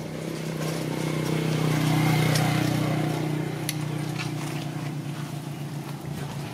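An engine running steadily with a low hum, growing louder about two seconds in and then easing off, with a few sharp clicks over it.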